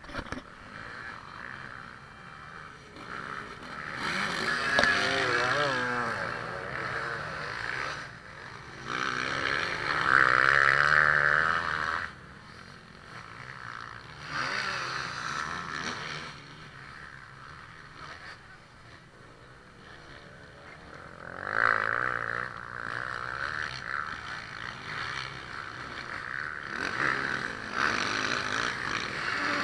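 Motocross dirt bikes racing past on the track, their engines revving up and down through gear changes. It swells loudly several times as bikes come close, with quieter stretches of distant engines between.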